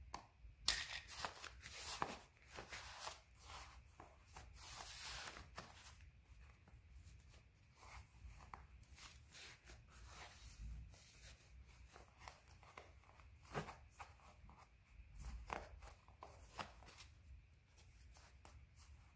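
Faint rustling and scraping of black satin fabric being handled, stretched and smoothed by hand, in irregular short bursts, busiest in the first few seconds.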